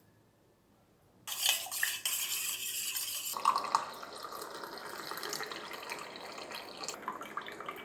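Liquid splashing and trickling, loud for about two seconds and then softer and steady with a few light clinks: lemon juice being squeezed into a cup of green tea.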